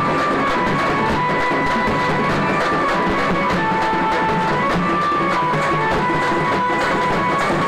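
Many dappu frame drums beaten together in a fast, dense rhythm. A wind instrument plays a melody in long held notes over the drumming.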